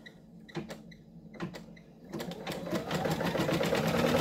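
Brother Quattro 2 6700D embroidery machine starting a new colour's underlay stitching. For the first two seconds it makes slow single stitches, each a distinct click about two a second. It then speeds up into a fast, even stitching rhythm that grows louder.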